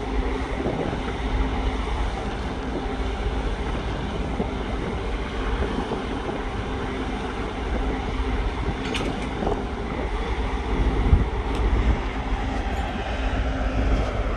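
Steady low mechanical rumble with a faint hum, from a ship's deck crane running with its hook hanging, with a few faint clicks about nine seconds in.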